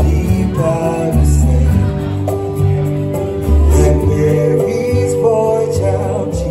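Slow music with singing: a held melody over low bass notes that change about once a second.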